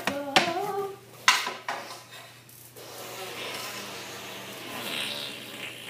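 A hockey stick strikes a puck on a concrete garage floor with a single sharp crack about a second in, after a short voice sound. Quieter scraping and rubbing follows as the stick works on the floor.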